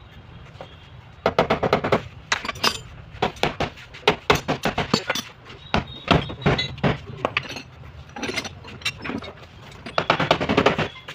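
Hammer striking the steel sheet metal of a car's rear quarter panel in quick bursts of sharp, ringing taps: panel-beating to work out a dent.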